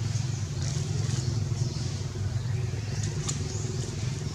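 Steady low engine-like hum running throughout, with a few faint scratchy sounds and a couple of brief clicks over it.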